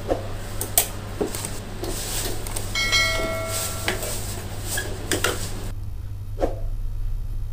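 Knocks and clicks of a baby high chair's steel leg pipes and plastic seat being handled and pushed together during assembly, with a brief ringing tone about three seconds in.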